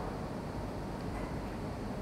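Steady low background rumble and hiss of the room, with no distinct events.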